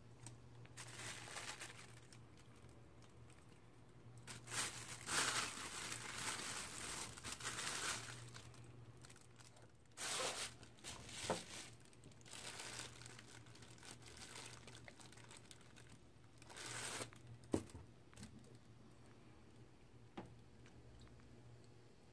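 Thin plastic bag crinkling and rustling in irregular bursts as marinated chicken pieces are tipped out of it into a bowl, with a sharp click at one point.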